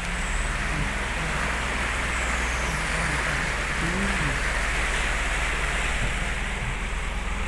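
Vehicle engine running with a steady low hum while fast-flowing floodwater rushes across the road with a continuous even roar.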